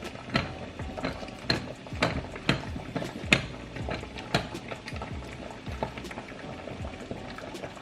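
Spoon stirring melting chocolate in a bowl set over boiling water, with repeated clinks and scrapes against the bowl, about two a second at first and fewer later.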